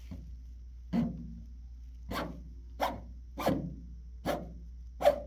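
A person making a series of short, sharp mouth noises for a cat, six in about four seconds, each sliding quickly down in pitch.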